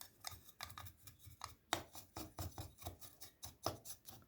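Light, irregular clicks and scrapes of a plastic remote-control back cover being handled, several a second.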